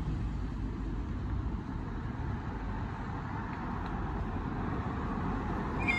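Steady road traffic rumble of cars passing on the street. In the last instant the level crossing's warning alarm starts up.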